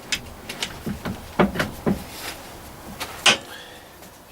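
Short scrapes and knocks of a home-made wooden chisel working caked, oily sawdust off a Colchester lathe, about seven strokes, the loudest about three seconds in.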